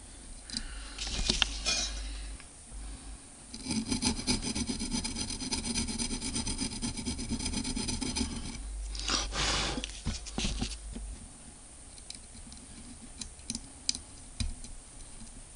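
A hand tool rubbing and rasping on a small metal part of a cordless drill's motor brush, as a little more material is taken off. A steady rasp runs for about five seconds from a few seconds in, with shorter scrapes before and after it and a few small clicks near the end.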